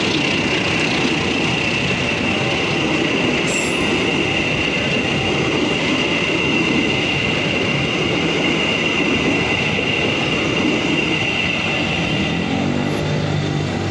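Passenger train coaches rolling past close by, with a steady high-pitched squeal from the running gear over the rumble of the wheels. The squeal fades out near the end as the last coach goes by.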